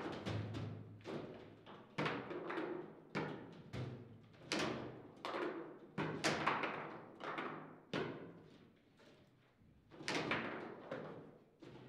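Table football (foosball) being played: irregular sharp knocks and thuds as the ball is struck by the figures and hits the table, and the rods are worked, each knock with a short ringing tail. The knocks ease off about eight seconds in, then pick up again near the end.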